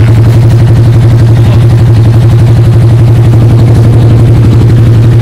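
Yamaha SZ motorcycle's single-cylinder engine idling steadily, with an even, rapid pulse.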